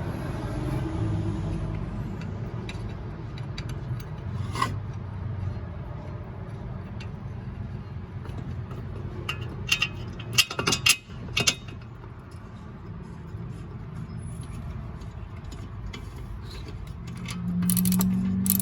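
Metal clinks, knocks and scraping of hand tools and brake parts during a brake pad and caliper job, with a cluster of sharp knocks about ten seconds in, over a steady low background rumble.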